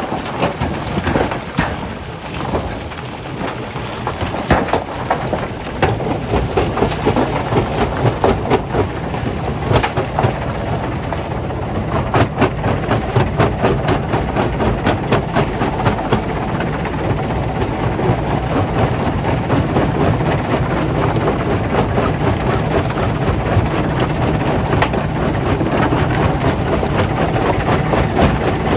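Rock being crushed and tumbling through stone-crushing machinery: a loud continuous rumble with dense, rapid clattering of stones, strongest in the first half. A steady low machine hum comes up under it from about halfway.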